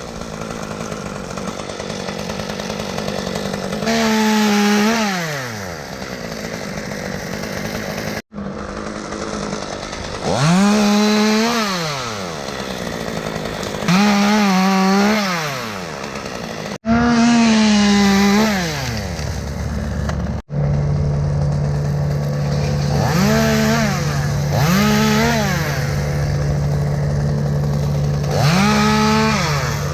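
Chainsaw revving up into cuts about seven times, each rev climbing in pitch, holding, then dropping back to idle. About two-thirds of the way through, a steady low engine drone joins in.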